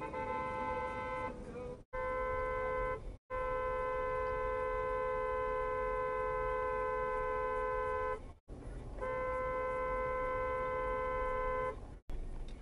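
Vehicle horn sounded in long steady blasts: a two-tone horn held for about one, one, five and three seconds in turn, each stopping abruptly, over low traffic rumble.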